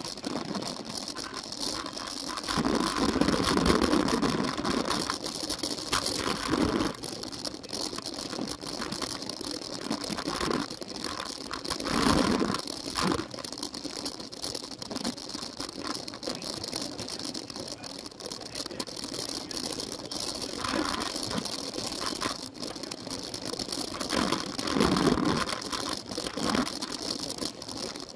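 Cyclo-cross bike rattling and clattering continuously as it is ridden over a rough dirt and gravel course, with tyre and ground noise, heard close up from a camera mounted on the moving bike. A few louder surges of clatter come over the rougher stretches.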